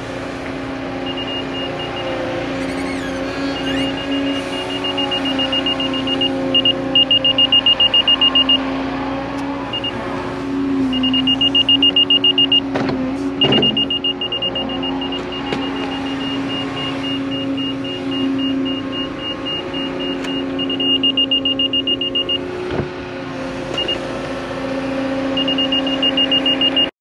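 A wheeled excavator's diesel engine runs steadily as it digs. Over it, a laser level receiver gives rapid high-pitched beeps in runs of a few seconds, the loudest sound, as it reads the trench depth. A single sharp knock comes about 13 seconds in.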